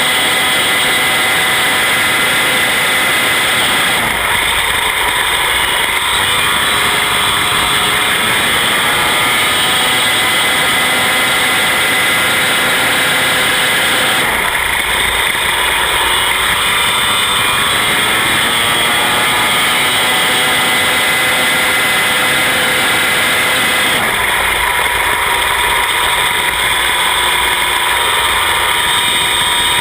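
Midget race car engine running hard and continuously, its pitch rising and falling repeatedly as the car accelerates and lifts through the turns.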